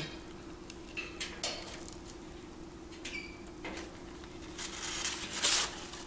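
African grey parrot rummaging and chewing among newspaper and cardboard at the bottom of its cage: scattered scratches, rustles and small clicks, busier and louder near the end, with a couple of brief high squeaky notes, over a steady low hum.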